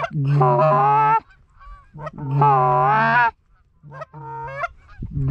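Two loud, long, wavering goose honks, about a second each, the first right away and the second about two seconds in, with fainter shorter honks between and after.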